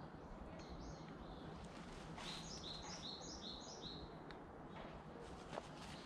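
A bird singing: a short two-note call, then a run of about five quick repeated two-part high notes, about three a second, over a faint steady outdoor background. A faint click near the end.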